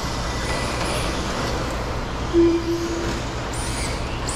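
Electric RC stadium trucks running on a dirt track: a steady wash of motor and tyre noise, with short high motor whines rising and falling near the end. A short steady tone, the loudest moment, sounds about halfway through.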